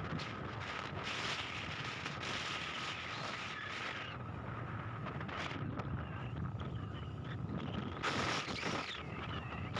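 Vehicle running along a road, with wind buffeting the microphone; a steady low rumble and a thin steady whine run under the noise.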